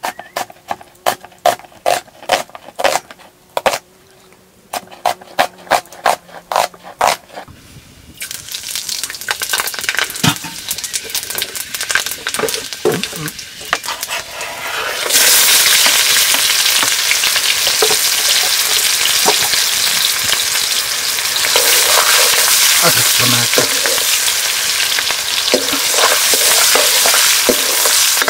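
Knife chopping on a board in quick strokes, about three a second, with a short pause, for the first seven seconds. Then food frying in hot oil in a pan, the sizzle jumping much louder about fifteen seconds in, with the clink and scrape of stirring.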